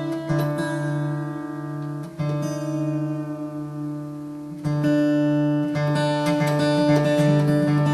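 Acoustic guitar's open first and fourth strings plucked and left ringing together as the first string is tuned down a tone to D to match the fourth. The notes are struck again about two seconds in and again, louder, at about four and a half seconds.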